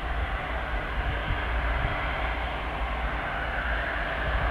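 Airliner engine noise: a steady rushing drone that grows a little stronger in its upper part near the end.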